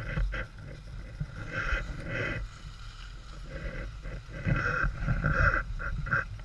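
Wind rumbling on the microphone, with muffled, uneven bursts of sound over it.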